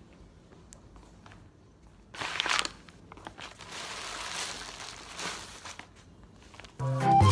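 A slipper-clad foot crushing small objects on a hard floor: a few faint clicks, a sharp crunch about two seconds in, then a long crinkling of plastic wrapping pressed underfoot. Music comes in near the end.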